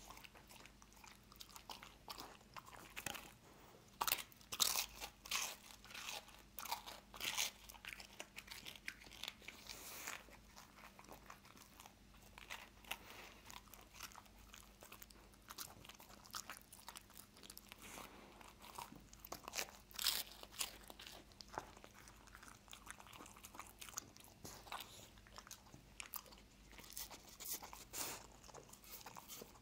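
A dog crunching and chewing peanut butter toast, with licking between bites. The crunches come in irregular crisp spurts, loudest about four to seven seconds in and again around twenty seconds in.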